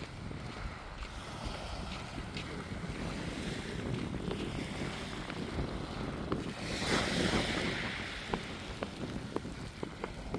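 Sea waves washing onto a beach, with wind buffeting the microphone; a wave swells louder about seven seconds in.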